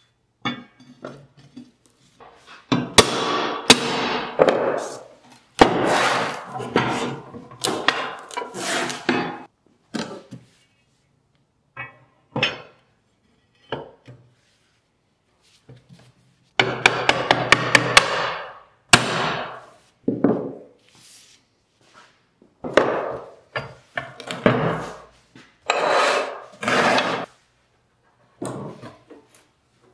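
Laser-cut steel plates scraping, sliding and clanking against each other and the table as they are handled and slotted together tab into slot, in several bursts with a few sharp knocks.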